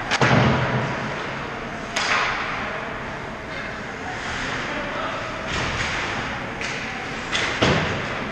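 Ice hockey play heard up close: sharp cracks and thuds of sticks, puck and players against the boards over a steady hiss of skates on ice. The loudest are a crack with a thud right at the start, a sharp crack about two seconds in, and a thud near the end.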